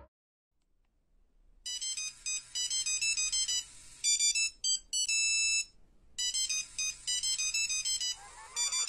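A high-pitched, ringtone-like electronic melody of quick short notes. It starts about a second and a half in and plays two similar phrases with a short break between them.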